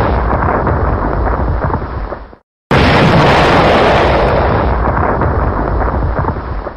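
Looped explosion sound effect used as a timer alarm. One loud boom fades out about two and a half seconds in, and a second identical boom goes off right after and fades away near the end.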